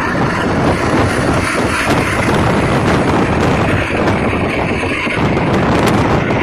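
Steady engine and road noise inside a moving truck's cab, with wind rushing over the microphone.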